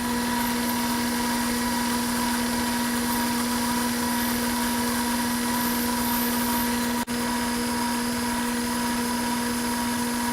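Bridgeport milling machine running steadily with a constant hum, drilling holes in an aluminum blank with a number 29 drill. It drops out for a split second about seven seconds in.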